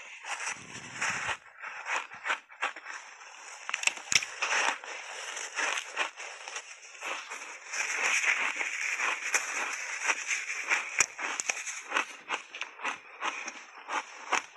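Close-miked crunching and chewing of a big bite of block ice coated in matcha powder: a dense, irregular run of sharp cracks and crackles as the ice breaks between the teeth.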